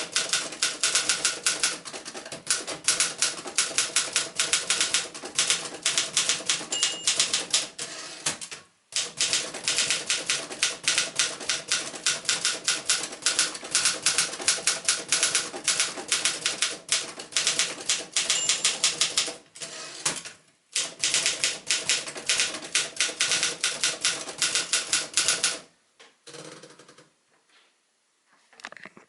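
1965 Remington Mark II manual portable typewriter being typed on at a fast, steady pace: a dense run of sharp keystroke clacks, with two short pauses and a brief ring twice. The typing stops near the end.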